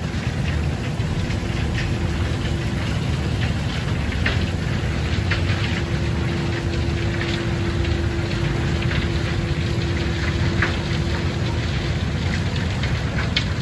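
Coal pouring from a train loadout chute into open rail wagons: a steady rushing patter with scattered rattles of lumps over the low rumble of the slowly moving coal train. A steady hum runs through the middle stretch.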